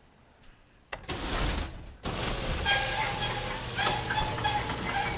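A car engine starting and then running steadily, with a rapid rattling clatter over it.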